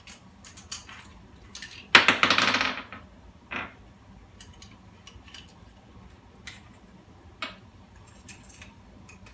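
Metal parts of a KWC Colt 1911 airsoft pistol clicking and clinking as it is taken apart by hand, with a louder metallic rattle about two seconds in that lasts about a second, and a few single sharp clicks after it.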